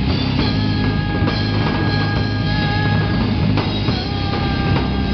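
Live rock band playing an instrumental passage: electric guitars holding chords over bass and a driving drum kit, loud and without a break.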